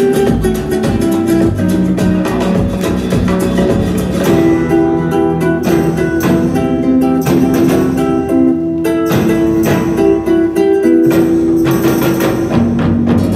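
Music with plucked guitar, played loud through Martin Logan loudspeakers driven by McIntosh amplifiers.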